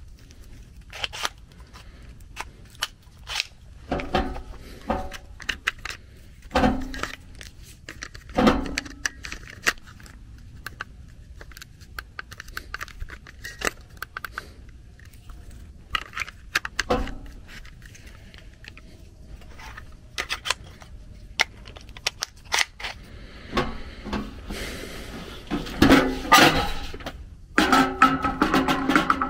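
Irregular sharp metallic clicks and knocks, a few of them loud, as hand tools work at a stuck blower wheel on the shaft of an old variable-speed furnace blower motor. Background music comes in near the end.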